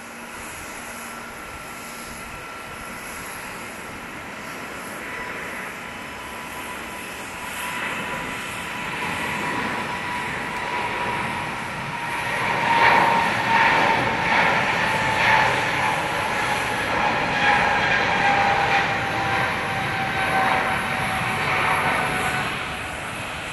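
Jet airliner engines passing close by, growing louder to a rough, crackling peak in the second half. A steady whine slowly falls in pitch as it goes past.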